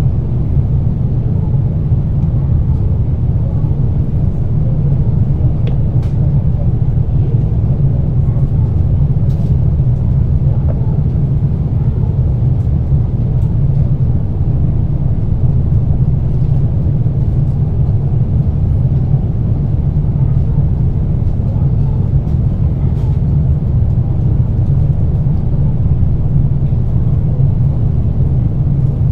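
JR Kyushu 817 series electric multiple unit running at a steady speed: a loud, even rumble of wheels and running gear on the rails, with a few faint clicks.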